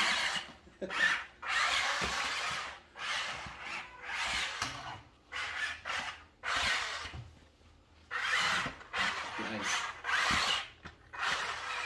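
Drive motors and gearing of a 1/16-scale six-wheel-drive RC military truck whirring in short full-throttle bursts, about a dozen, stopping and starting as it is skid-steered over carpet, with a short lull about two-thirds of the way through.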